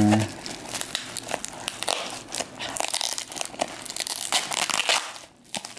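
Bubble wrap and plastic packaging crinkled and pulled apart by hand, a dense run of crackles and rustles that stops about five seconds in.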